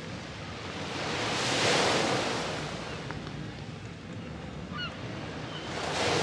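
Small sea waves breaking and washing up a sandy beach, swelling to a peak about two seconds in and again near the end. A few faint, short gull calls a little past the middle.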